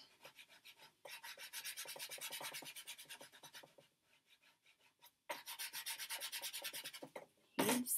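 Chalk pastel being scrubbed across paper in fast back-and-forth strokes while colouring in a large area. Two runs of strokes, with a pause of about a second and a half between them.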